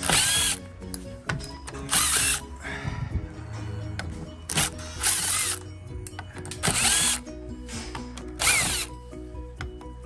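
Cordless power driver backing out the steel faceplate screws of a uPVC door's multipoint lock mechanism, running in about six short bursts with a whine that rises and falls. Background music runs underneath.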